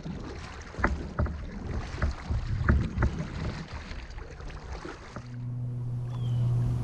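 Several sharp knocks and bumps on a fishing kayak as a bass is handled for release, then a steady low hum sets in about five seconds in.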